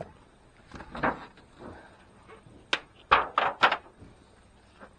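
A wooden beehive being opened: soft handling noises, a sharp knock almost three seconds in, then three quick rushing noises close together.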